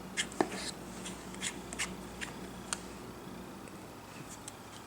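Faint, scattered small clicks and ticks of a precision screwdriver and tiny pentalobe screws being handled at the bottom edge of an iPhone 6, over a low steady hum.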